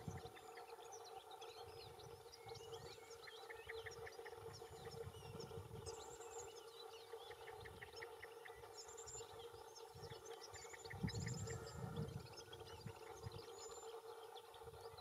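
Wild Atlantic canaries twittering faintly: a running mix of quick high chirps and short trills of rapidly repeated notes. Underneath are a steady low hum and a low rumble that comes and goes, loudest about eleven seconds in.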